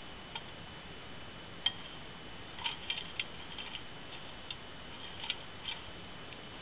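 Small dry twigs being dropped into a metal Volcano camp stove, giving about eight light, irregular clicks and taps.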